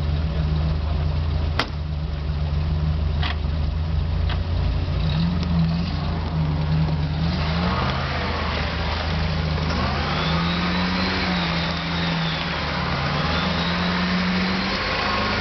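UAZ off-roader's engine running under load in deep mud, its revs rising and falling from about halfway through. From then on the tyres churning through mud and water add a loud splashing hiss, with a few short knocks in the first few seconds.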